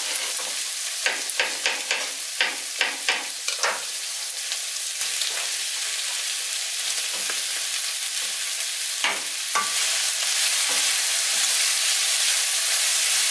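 Beef, onions and red pepper frying in a pan with a steady sizzle. About a second in comes a quick run of knife chops on a plastic cutting board, about three a second, and near the end a couple of knocks, then the sizzle grows louder as the pan is stirred with a spatula.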